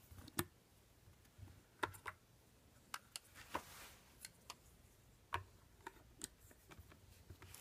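Scattered faint clicks and taps of hard plastic as the screwed-on battery cover on the back of a Keysight U1231A handheld multimeter is opened and fitted back on, with a brief rustle of handling partway through.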